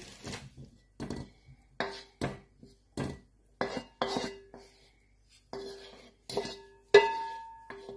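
Wooden spatula knocking and scraping on a non-stick wok as the cooked filling is scraped out into a bowl. It comes as a string of separate knocks, several leaving a short ring, with the loudest about seven seconds in.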